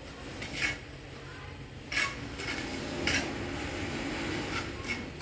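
A bricklayer's steel trowel clinking against bricks and mortar: about five sharp metallic taps spread over a few seconds as bricks are set and tapped into place.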